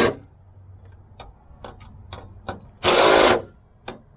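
Cordless power driver running in short bursts to tighten the locker bracket's bolts: one burst ends just after the start and a full half-second burst comes near the end, with light clicks of the tool and bolts in between.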